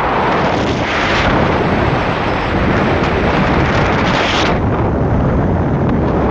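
Loud wind buffeting the microphone, a rumbling rush that swells in gusts about a second in and again around four seconds in.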